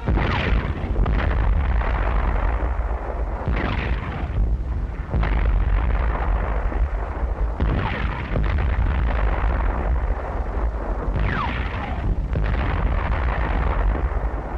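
Tank guns firing and shells bursting over a continuous heavy rumble, with a new blast every second or two. About three-quarters of the way through there is a short falling whistle.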